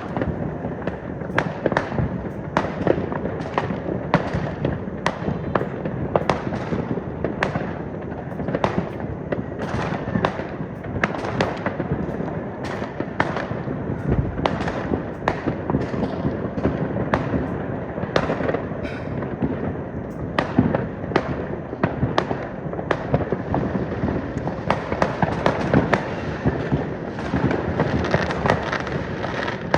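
Many fireworks going off at once: a steady crackle with frequent sharp bangs, several a second, that never lets up.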